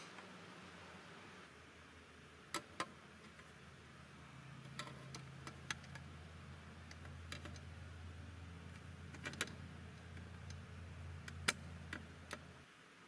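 A screwdriver prying and bending the tabs inside a stamped steel toy plane's fuselage: scattered sharp metallic clicks and taps of the tool tip on thin sheet steel. Under them runs a faint low hum that cuts off just before the end.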